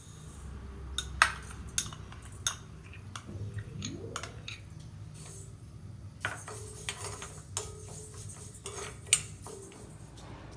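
Steel spoon clinking and scraping against a kadai while dry-roasting moong dal, with sharp clinks scattered throughout over a low steady hum.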